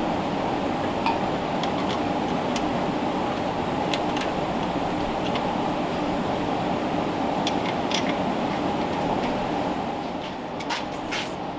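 Light metallic clinks of parts and tools being handled while fitting a brake pedal bracket to a Ford Model A transmission, over a steady noise. Several clinks come close together near the end, with a brief hiss.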